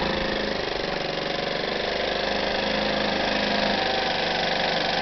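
GY6 150cc four-stroke single-cylinder scooter engine idling steadily.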